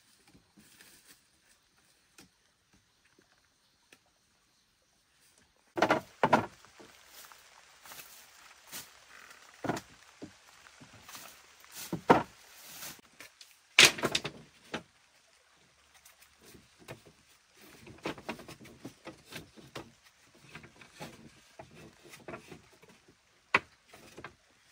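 Irregular knocks and thuds with handling and rustling between them, starting about six seconds in; the loudest blows come around the middle and one more near the end.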